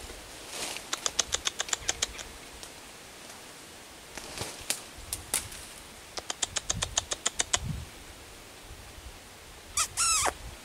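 Wild animal calls: two quick runs of about ten sharp clicking notes, a few single clicks between them, and a short harsh call that falls in pitch near the end.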